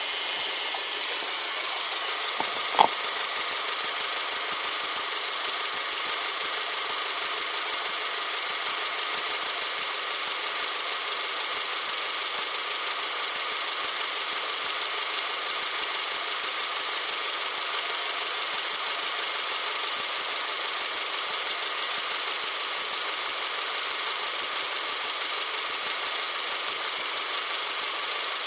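Subaru EJ253 2.5-litre flat-four engine idling steadily with a fast, even pulsing beat. One sharp click sounds about three seconds in.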